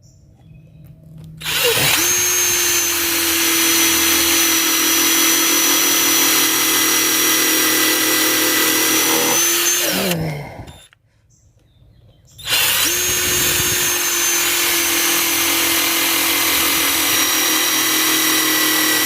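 Bauer 20-volt Hypermax cordless impact driver running under load in two long runs, one of about nine seconds and one of about seven. Each run spins up quickly and holds a steady pitch, and the first winds down at its end.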